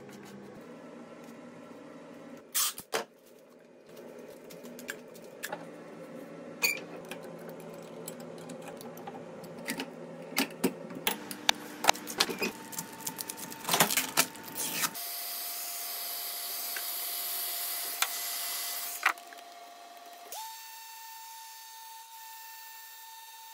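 Hand-tool work on a wooden cricket bat's damaged toe: a string of sharp clicks, knocks and scrapes as it is cut and worked, then a random orbital sander running steadily on the bat's face with a steady whine that steps up in pitch and gets quieter about twenty seconds in.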